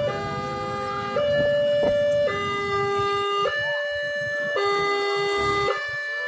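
Railway level-crossing warning alarm sounding: an electronic two-tone signal alternating between a low and a high pitch about once a second, the sign that a train is approaching and the crossing is closing.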